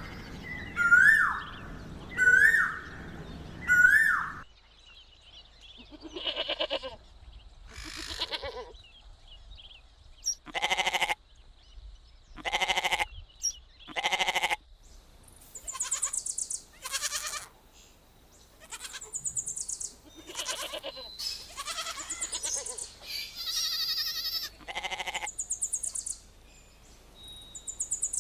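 A string of animal sound-effect clips: four short hooked calls in the first few seconds, then goat bleats, one every second or two, then higher-pitched chirping calls in the second half.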